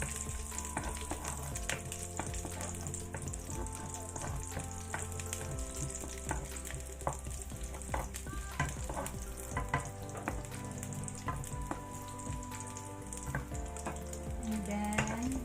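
Chopped garlic sizzling in hot oil in a pan, stirred with a ladle that clicks against the pan now and then.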